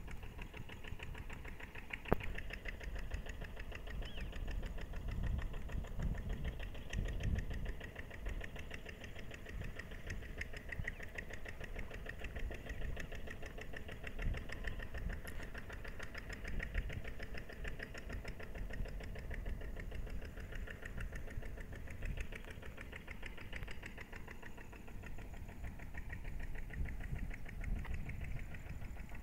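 A steady engine running with a rapid, even pulse, over a low rumble that swells and fades.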